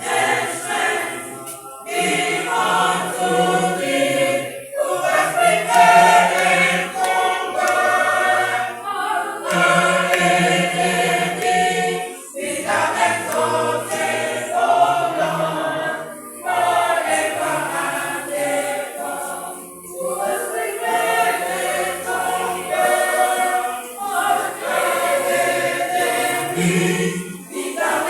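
A choir singing a gospel hymn together, in phrases of a few seconds with short breaths between them.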